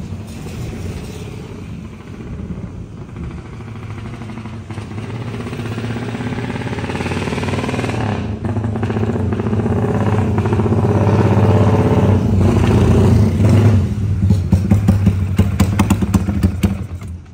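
Fuel-injected Yamaha Y15ZR motorcycle engine coming closer from a distance and growing louder. It runs with an uneven, choppy 'bobok-bobok' beat likened to a helicopter, breaking into rapid uneven pulses in the last few seconds as the bike pulls up. The choppy running is put down to the engine not yet being dyno-tuned and its throttle position sensor not being set.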